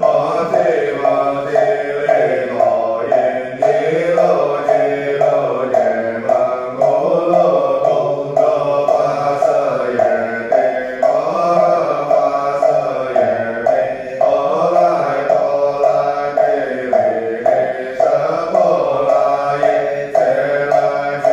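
Buddhist liturgical chanting: voices recite in a slow rising-and-falling melody, kept in time by a wooden fish (muyu) knocked at a steady beat of about three strikes a second.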